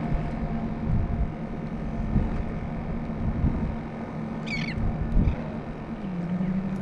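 Wind and water noise with the steady hum of a kayak's electric trolling motor, which drops a little in pitch near the end. A short, wavering bird call sounds about halfway through.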